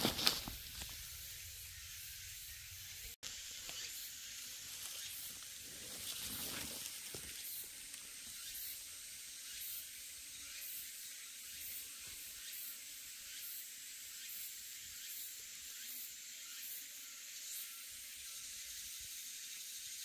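Insects droning as a steady high hiss that pulses regularly, a little faster than once a second. A brief rustle or footstep on dry leaves comes near the start.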